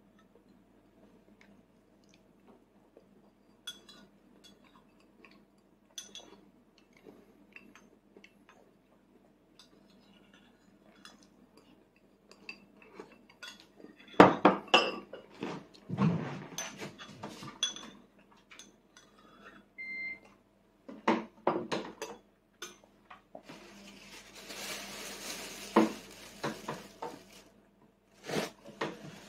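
Small fork clinking and scraping against a plate and bowl in scattered light taps, loudest in a cluster a little past the middle. A few seconds of soft hiss follow near the end.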